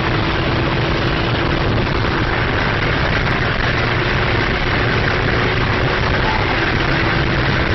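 Steady engine, wind and road noise inside a car travelling at over 200 km/h on a motorway, with a faint steady engine tone.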